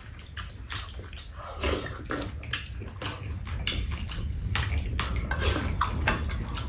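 Close-up eating sounds: chewing, with spoons clicking and scraping against bowls and a metal pan several times a second, over a steady low hum.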